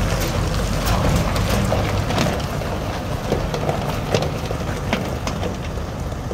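2006 Chevrolet Kodiak C5500's Duramax 6.6L V8 turbo diesel running as the truck drives off across gravel, its tyres crunching and popping the stones. The engine fades as it moves away.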